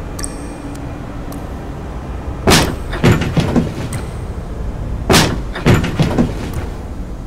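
Restroom stall doors banging open, two bangs about two and a half seconds apart, each followed by a few smaller rattling knocks.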